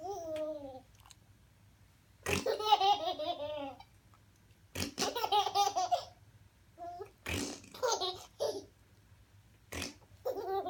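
A man blowing short, fart-like raspberries with his mouth, each answered by a baby's giggling laughter, about four times over.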